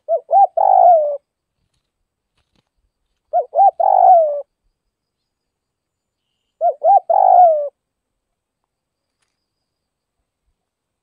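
Spotted dove singing its cooing song three times, about three seconds apart. Each phrase is two short coos and then a longer coo that falls away at the end.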